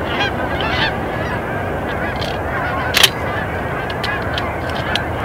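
A huge flock of Canada geese honking overhead, many calls overlapping in a steady din. A single sharp click about three seconds in.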